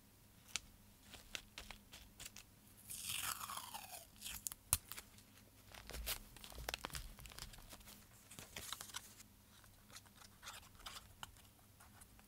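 Dried baby's breath stems and paper crackling and crunching as they are pressed down onto a glued art journal page: scattered small crisp crackles, with a longer scratchy rustle about three seconds in.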